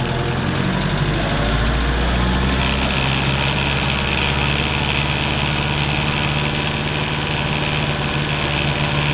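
Mitsubishi MT23 compact tractor's diesel engine running steadily under load as it pulls a spike-tooth harrow across tilled soil.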